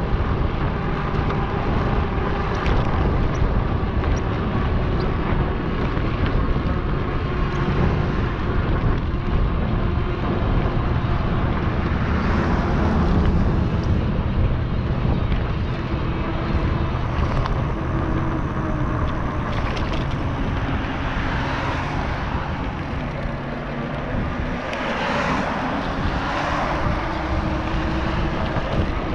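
Riding noise of an NCM Aspen e-bike: a steady rush of wind and tyre noise with a faint steady hum. The noise swells several times, around 12, 20 and 25 seconds in.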